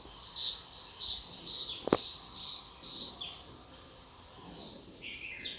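Steady high insect trilling, with a run of short high chirps about twice a second and a single sharp click about two seconds in.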